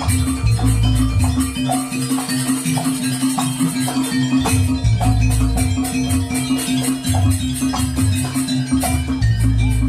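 Live Javanese jaranan gamelan music: deep drum or gong strokes land every second or two under a held low tone, with a fast, even metallic ticking from small percussion over the top.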